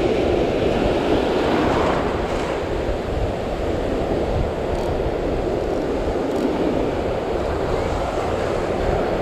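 Ocean surf breaking and washing in the shallows, with wind blowing across the microphone: a steady rushing noise.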